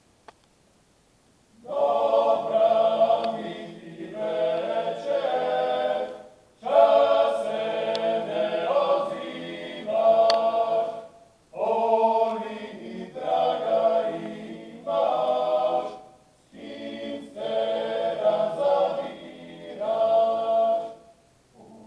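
Dalmatian klapa, a male vocal ensemble, singing a cappella in close harmony, starting about two seconds in, in four phrases broken by short pauses for breath.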